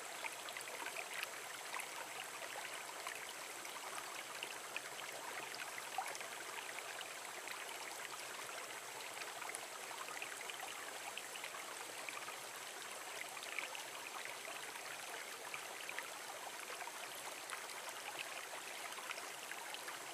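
Small stream flowing over rocks in a little cascade into a shallow pool: a steady rush of water with many small splashes and bubbling.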